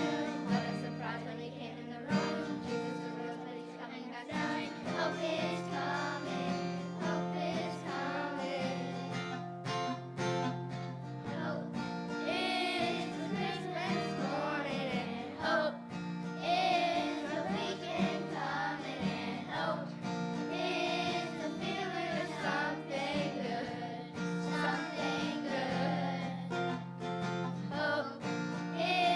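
Live music: voices singing over a strummed acoustic guitar.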